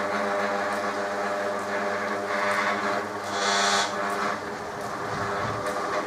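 Electric motor on a Holbrook B9 lathe running with a steady hum and many overtones, driving the lathe through a slipping belt. It is noisy, partly electrical hum and partly vibration, and swells with a brighter hiss twice in the middle.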